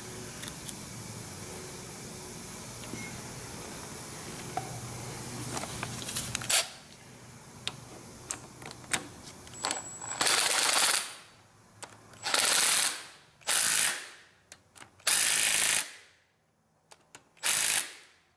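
A cordless Milwaukee power tool runs in five short bursts of about a second each, driving down the rocker-arm bolts on a Cummins 8.3 L diesel's cylinder head. Before that there is a low steady hum with a few clicks and taps of metal parts being handled.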